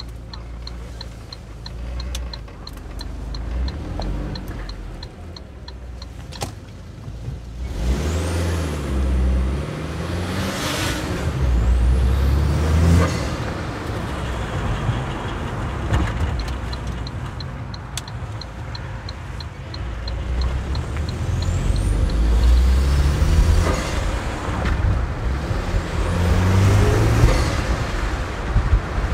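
Saab 9-5's engine heard from inside the cabin, running quietly and then pulling away, rising in pitch and dropping at each gear change as the car accelerates. A turn-signal indicator ticks steadily, about three ticks a second, for the first several seconds and again midway.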